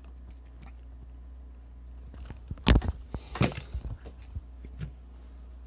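Handling noise from small hand tools and wire being worked over a circuit board: a few sharp clicks and knocks, the loudest about two and a half seconds in, with a low steady hum underneath.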